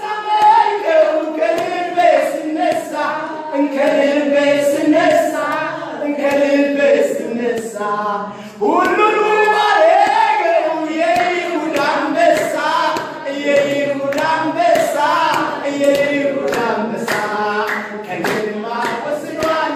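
A group of voices singing a worship song together, with rhythmic hand clapping.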